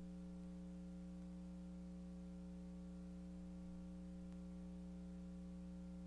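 Steady mains hum: a low electrical buzz with a stack of overtones, unchanging throughout, on the audio track of an old videotape recording.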